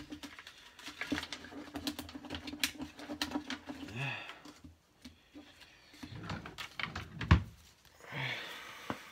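Cards and small items being handled and rummaged through, a quick patter of light clicks and taps over a steady low hum in the first few seconds, then a single heavy thump a little after seven seconds.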